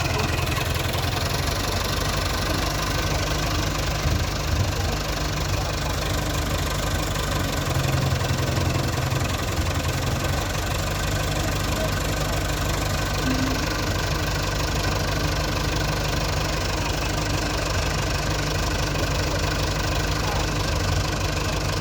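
Backhoe loader's diesel engine running steadily, its note shifting briefly about eight seconds in.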